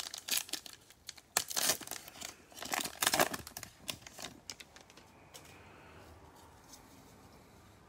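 Foil wrapper of a Donruss football card pack being torn open and crinkled, in several crackling bursts over the first four seconds or so.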